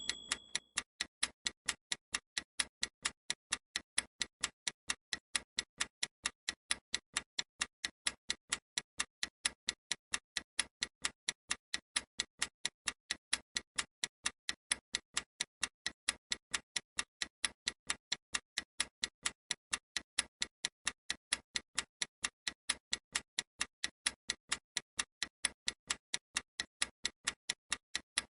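Analog clock ticking: sharp, evenly spaced ticks, several a second, at a constant level.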